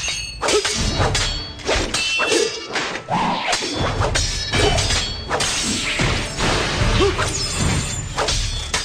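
Anime sword-fight sound effects: a rapid run of blade clashes and hits, about two a second, with swishes of swinging swords between them.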